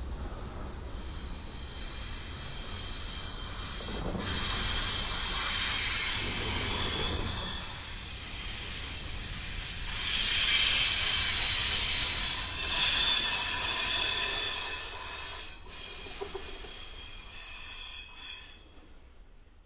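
Freight cars rolling past on the rails, with high-pitched wheel squeal that swells and fades. The passing is loudest about halfway through and dies away near the end.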